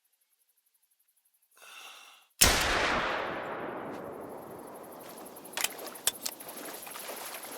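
A single pistol shot, loud and sudden, with a tail that fades away over about two seconds. Just before it comes a short harsh sound, and a few sharp snaps and crackles follow a few seconds later.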